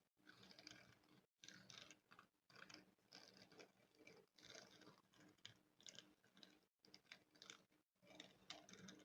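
Faint, irregular scratching strokes of a spoon on a microphone, coming in quick clusters with a few brief pauses.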